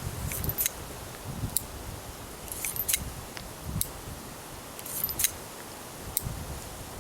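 Heritage Rough Rider .22 single-action revolver being unloaded: about half a dozen light metallic clicks, a second or so apart, as the cylinder is turned at half cock and spent cases are pushed out with the ejector rod.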